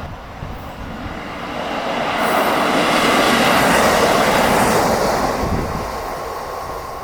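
A train passing: its noise builds over a couple of seconds, is loudest around the middle, and fades away by about six seconds in.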